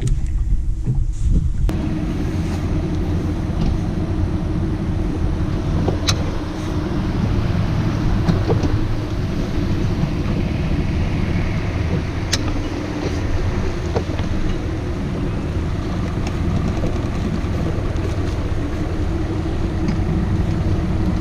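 Bass boat motor running steadily with wind noise on the microphone, and a few sharp clicks.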